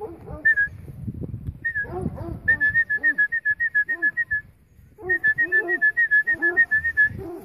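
Rapid, evenly spaced short high whistles of one pitch, about five a second, in two runs with a brief pause about halfway, over lower rhythmic calling sounds at the same pace.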